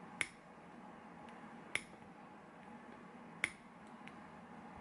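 Four sharp metallic clicks, about one and a half seconds apart, from a metal tool catching on the undercut grooves inside the pin chambers of a disassembled Assa oval lock cylinder.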